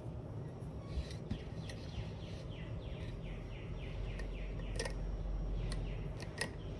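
A bird calling in the background with a quick run of short falling chirps, about four a second, over a steady low hum. There are two sharp clicks later on.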